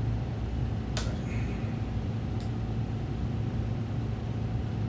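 Steady low mechanical hum, like room air conditioning. A sharp click comes about a second in and a fainter one a little after two seconds, as a plastic drink bottle's cap is twisted.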